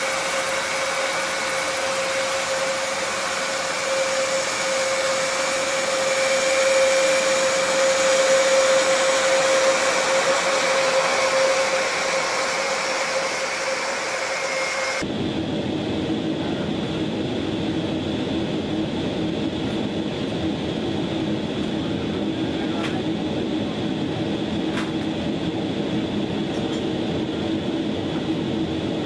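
A400M Atlas's four TP400 turboprops running as the aircraft taxis past, a steady propeller drone with a high whine, loudest a few seconds in. The sound cuts off suddenly about halfway through to a steady lower hum inside the cargo hold, with a couple of faint clicks.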